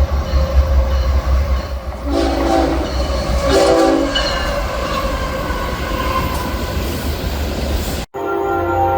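Passing train rumbling, its horn giving two short blasts about two and three and a half seconds in. Near the end the sound cuts suddenly to another train horn, held with several tones sounding together.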